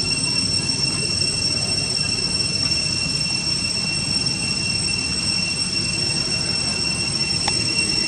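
Steady high-pitched drone of night insects, two unwavering shrill tones, over a low rumbling hiss.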